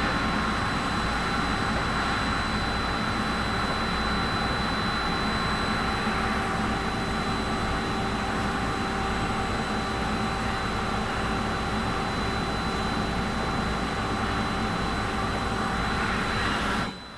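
Steady whirring of an electric motor and fan with a thin high whine on top, cutting off abruptly near the end.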